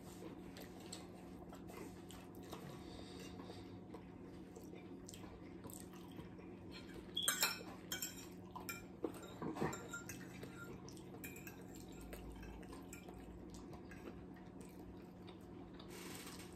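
Quiet mealtime sounds: forks clinking and scraping on plates now and then, mostly a little past the middle, over a steady low room hum.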